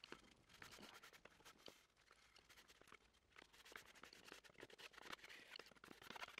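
Faint scraping and rubbing of a small spatula smoothing adhesive along the edge of a sealing tape on a waterproofing membrane: a quick run of short scratchy strokes, a little louder near the end.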